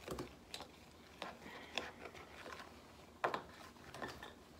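Faint scattered clicks and knocks of spoons and plastic bowls being handled on a tabletop, with one sharper knock a little past three seconds in.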